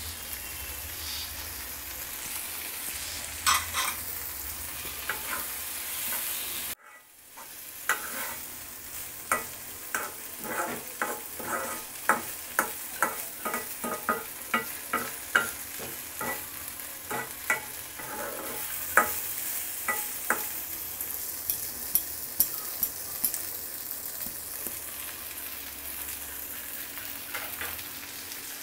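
Mashed fish, onion and coriander leaves sizzling in a wok on a gas flame while a long-handled metal spoon stirs them, scraping and tapping against the pan. The sizzle is steady; through the middle stretch the spoon taps come quickly and regularly, and the sound cuts out for a moment about seven seconds in.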